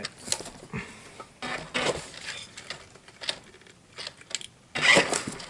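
Irregular handling noises: plastic clatter, knocks and rustles as the RC car and its packaging are moved about, with the loudest rustle about five seconds in.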